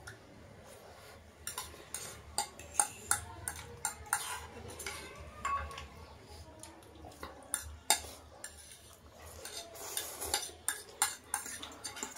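Metal forks clinking and scraping on ceramic plates as two people eat noodles, with many short sharp clinks scattered irregularly throughout.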